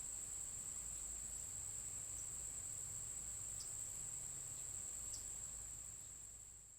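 Steady high-pitched insect chorus, with two faint short chirps in the latter half; the sound fades out at the end.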